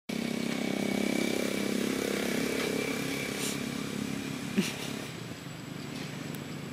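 A motorcycle engine running steadily, louder in the first few seconds and then fading away. There is a single sharp click about four and a half seconds in.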